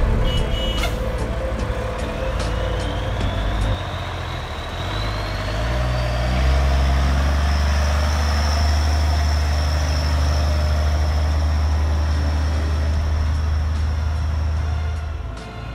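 A loaded tri-axle dump truck's diesel engine running as the truck drives past, with a heavy low rumble. A high whine rises over the first few seconds and then holds steady.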